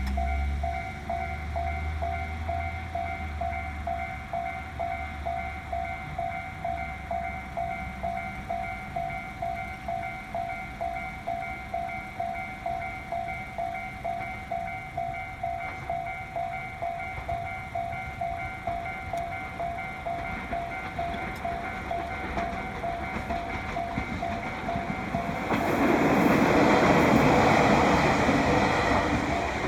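Japanese railway level-crossing warning bell ringing in a steady, rapidly repeating pattern throughout. A low rumble fades over the first few seconds. About 25 seconds in, a train passes through the crossing loudly, then dies away just before the end.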